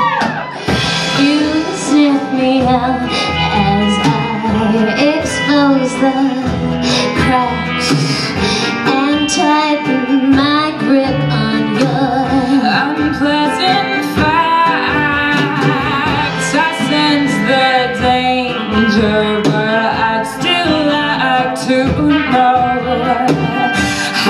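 Live pop song: two women singing over ukulele, upright bass, electric guitar and drums.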